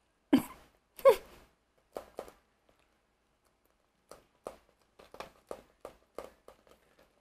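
A person's short, breathy laughs: two louder exclamations near the start, the second falling in pitch, then a run of quick chuckles, about three a second, in the last few seconds.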